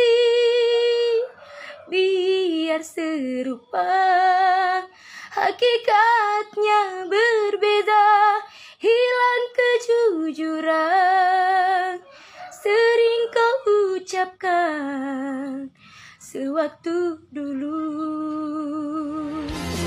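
A young woman singing solo without accompaniment, long held notes with a wavering vibrato broken by short pauses for breath. Loud recorded music cuts in at the very end.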